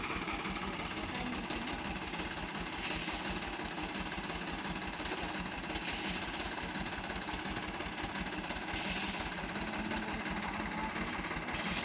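Mitsubishi Canter dump truck's diesel engine idling steadily, with a short hissing scrape about every three seconds as a shovel digs into the sand load.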